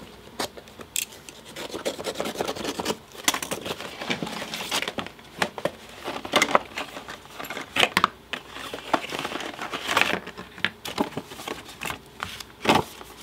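Cardboard and paper packaging being opened and handled: a utility knife slitting the box's seal, the box sliding and rubbing, then an instruction sheet rustling and a wiring harness being set down on the bench, with many irregular clicks and taps.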